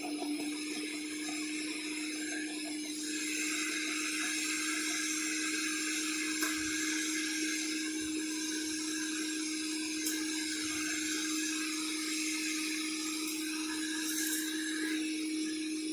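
Sun Joe CJ603E 15-amp electric wood chipper-shredder running with a steady motor whine; about three seconds in a grinding noise rises over it as it works through material, with a few sharp clicks. It is not even close to silent.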